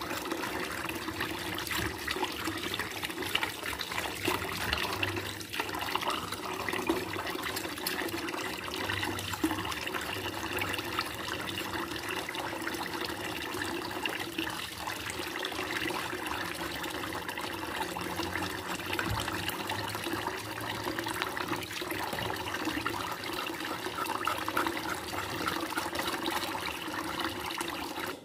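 Tap water running steadily into a plastic basin in a stainless steel sink, with irregular small scrapes and splashes as a knife scrapes a piece of beef hide under the stream.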